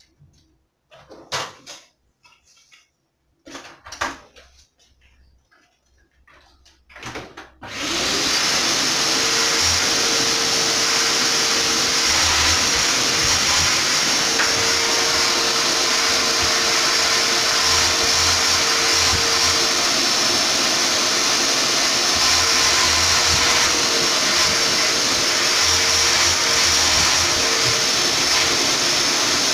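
A canister vacuum cleaner: a few knocks and clicks as it is handled, then it is switched on about eight seconds in and runs steadily and very loud while it cleans sofa upholstery.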